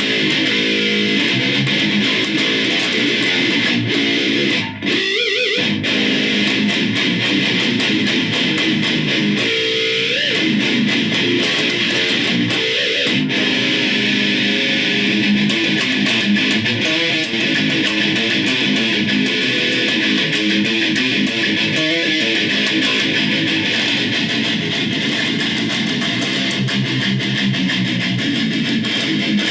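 Seven-string electric guitar played through a Roland Micro Cube practice amp, continuous distorted metal riffing, with a brief break about five seconds in.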